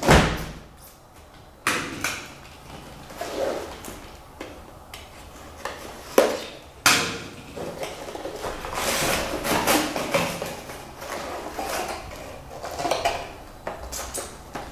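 Cardboard shipping box handled by hand: a thump as it is set down, a few sharp knocks and taps against the box, then the rustle and scrape of its flaps being opened and the cardboard insert being lifted.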